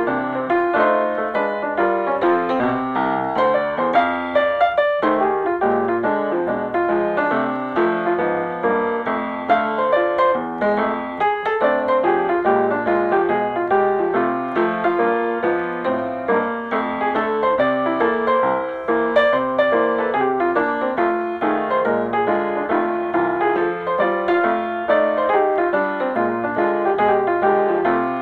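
Background piano music: a lively piece of quick, continuous notes.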